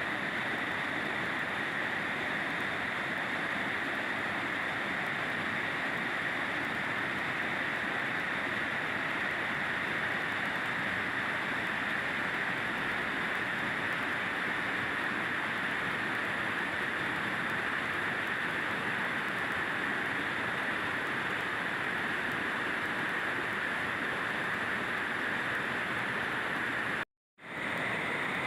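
Waterfall: the steady rushing of falling water. The sound drops out for a moment near the end.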